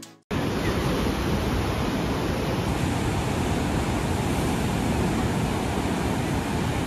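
Steady rushing noise of wind on the microphone, heavy in the low end, cutting in abruptly a moment in.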